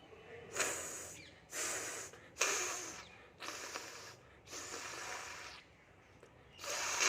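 A person blowing their nose, six blows in a row, each under a second, with a longer pause before the last.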